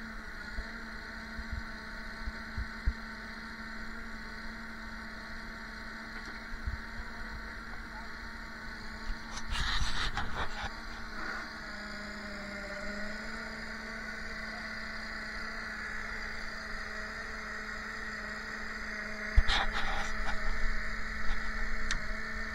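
Vehicle engine idling with a steady hum, broken by brief louder clattering noises about ten seconds in and again near the end.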